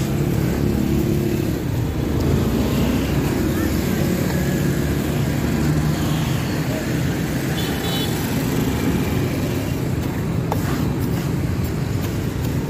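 An engine running steadily at a low pitch amid street traffic noise.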